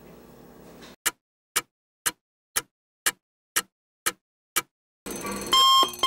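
Clock-ticking sound effect: eight sharp ticks, about two a second, followed near the end by a ringing alarm tone, standing in for the minutes the cake cooks in the microwave.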